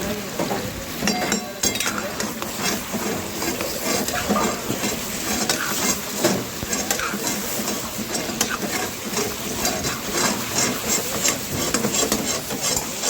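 Chicken frying and sizzling in a karahi while a metal ladle stirs it, scraping and clanking against the pan over and over.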